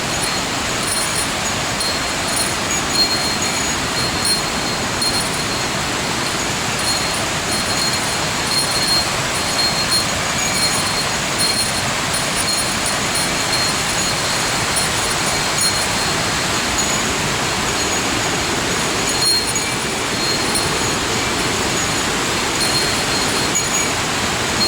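Steady rushing of a mountain-gorge waterfall, with faint thin high tones coming and going above it.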